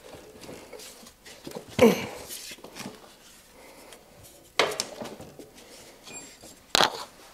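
Honda CB450T rear wheel being wrestled out of the swingarm after its stuck axle came free: three sharp clunks of the wheel and tyre knocking against the frame, the loudest about two seconds in, with softer rubbing and scraping between them.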